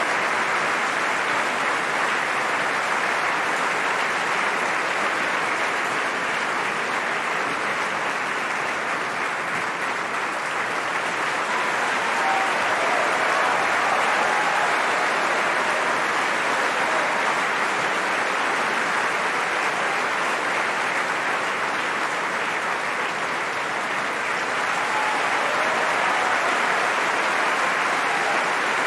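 A large theatre audience applauding steadily at an opera curtain call, swelling a little about twelve seconds in and again near the end.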